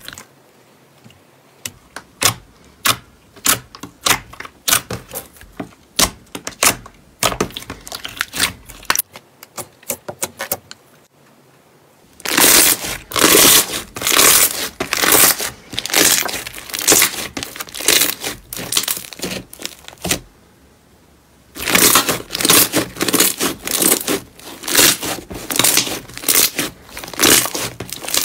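Slime being pressed and worked by hand, giving sharp crackles and pops: scattered single pops at first, then dense crackling from about twelve seconds in, with a short pause near twenty seconds before the crackling resumes.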